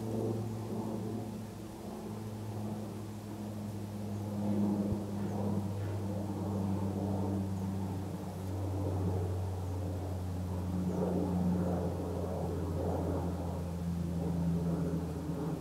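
A vehicle engine idling: a steady low hum whose pitch shifts slightly a couple of times.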